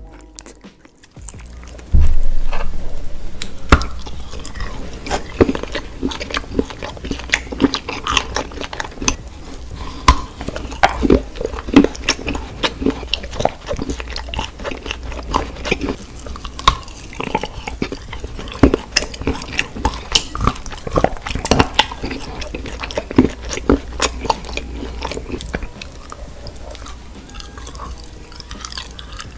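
Close-miked mouth sounds of biting and chewing a soft food, with frequent wet smacks and clicks. They begin suddenly about two seconds in, over a low steady hum.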